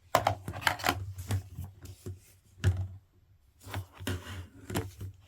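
Vacuum cleaner hose being handled: irregular plastic clicks, taps and rustles, with a few dull knocks.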